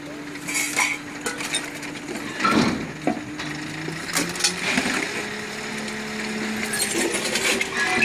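Clinks, knocks and rustling of belongings, tarps and bags being gathered and tossed onto a waste truck, with the loudest knocks about two and a half and three seconds in, over a steady low hum.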